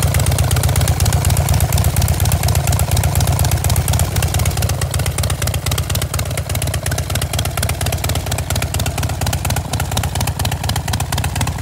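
Harley-Davidson Dyna Wide Glide's air-cooled V-twin idling steadily, a fast, even, low pulsing.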